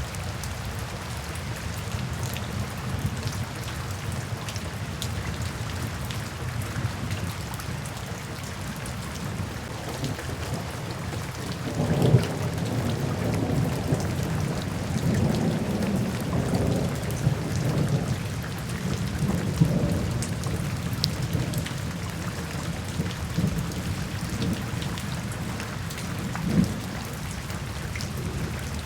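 Steady rainfall with a rumble of thunder that opens with a sharp crack about twelve seconds in and rolls on for several seconds, followed by a smaller thump of thunder near the end.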